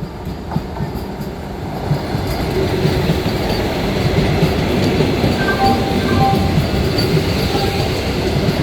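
Vande Bharat electric train pulling in along the platform: a steady rumble of wheels on rail that grows louder, with a few brief wheel or brake squeals past the middle.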